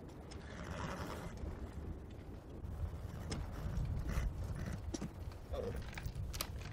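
Horses standing and shifting, with scattered hoof clops and clicks over a low steady rumble.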